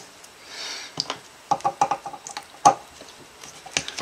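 Small metal screws and their shockproof washers clicking and clinking as they are undone with a screwdriver and handled. There is a soft rustle early on, then a scatter of sharp clicks, one standing out about two-thirds of the way through.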